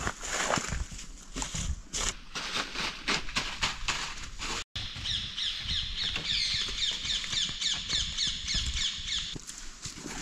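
Dry leaves and twigs rustling and crackling as they are handled. After a brief cut about halfway through, a bird calls in a rapid series of short high notes, about five a second, for some four seconds.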